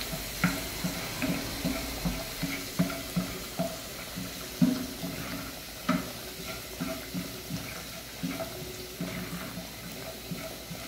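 Wooden spoon stirring rice and water in an aluminium pot: water sloshing, with short scrapes and knocks of the spoon against the pan, roughly once a second.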